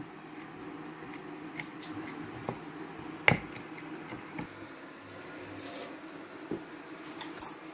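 Chef's knife chopping fresh herbs on a wooden cutting board: scattered knocks of the blade on the wood, the loudest about three seconds in, over a faint steady hum.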